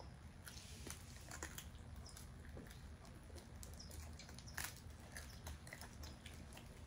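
Faint chewing of roast chicken close to the microphone: scattered small mouth clicks and bites, with one sharper click about four and a half seconds in.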